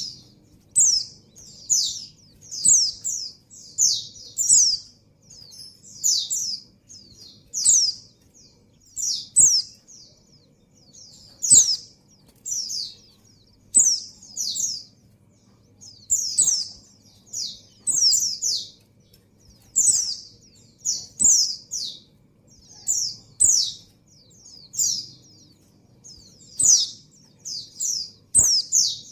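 White-eye (pleci) giving short, high descending chirps in quick clusters of two to four, repeated about every second: the call of a female in breeding condition calling to a male.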